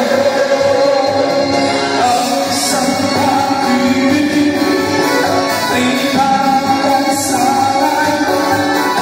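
A singer performing live into a microphone over loud backing music, holding long notes that slide between pitches, amplified through the stage sound system.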